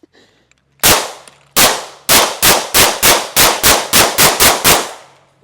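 Gunshots: a single shot about a second in, then a rapid string of about a dozen shots fired at roughly three a second, each a sharp crack with a short echoing tail.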